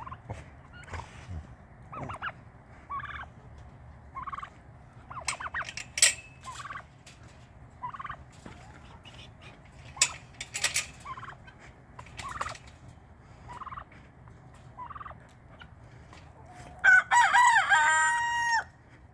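Domestic poultry, turkeys among them, calling: scattered short clucks and calls with a few sharp clicks, then near the end a loud, long call held about a second and a half.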